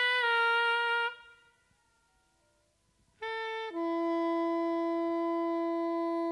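Unaccompanied saxophone in a jazz recording: a falling run of notes that stops about a second in, a pause of near silence, then a note that steps down and is held long and steady.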